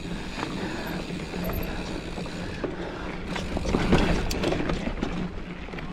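Mountain bike being ridden along a dirt trail: steady tyre and rolling noise with scattered rattles and clicks from the bike, and wind on the camera microphone.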